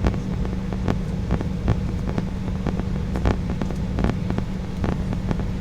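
Cabin noise of an Embraer E175 taxiing after landing: a steady low rumble and hum from the engines and air system, with frequent small knocks and rattles.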